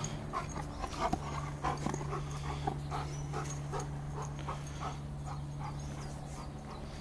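Giant Schnauzer panting quickly, about three or four breaths a second, growing fainter toward the end, over a steady low hum.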